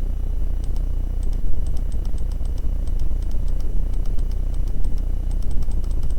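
Computer keyboard and mouse clicking in irregular quick runs, faint over a loud, steady low hum.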